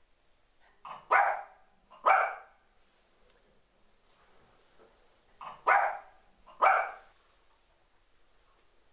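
Small white dog barking: four sharp barks in two pairs, each pair about a second apart, with a pause of a few seconds between the pairs.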